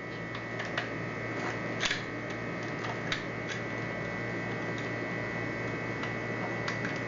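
Scattered light clicks and taps of a knob lockset's metal parts being handled and fitted together, a few strokes spread over the span, over a steady electrical hum.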